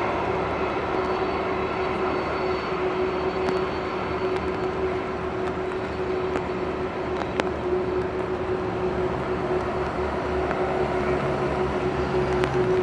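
Boeing 777 Freighter running steadily: a constant whine held on one pitch over a wide rush of noise, with a few faint clicks. A lower hum joins near the end.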